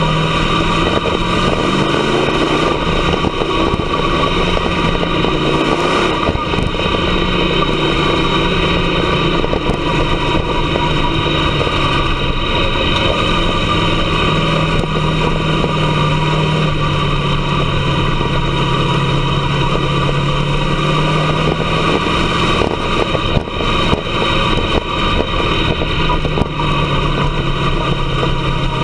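Dirt-track race car engine heard from inside the cockpit, running at a fairly steady pitch with slight rises and dips and a brief rising rev about a second in.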